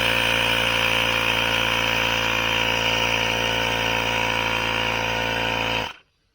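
Portable tyre-inflator air compressor running steadily with a buzzing hiss, pumping up the electric unicycle's tyre to around 30 psi. It stops abruptly near the end.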